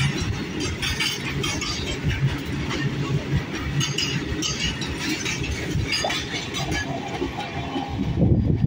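Freight train of covered goods wagons rolling past close by: a steady rumble of steel wheels on rail, with repeated clatter and clinks as the wheelsets pass over the rail joints. A brief high squeal comes about six seconds in.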